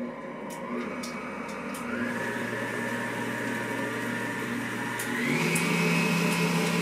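Electric stand mixer running. Its motor whine steps up in pitch three times and gets louder as the speed is turned up.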